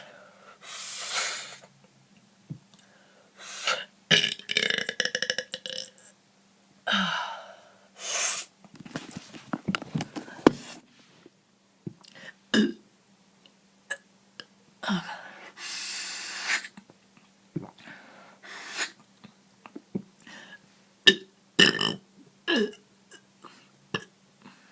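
A person burping on command: a string of deliberate burps of varying length, the longest about four seconds in, with hissing intakes of air and small mouth and throat clicks in between as she swallows air for the next one.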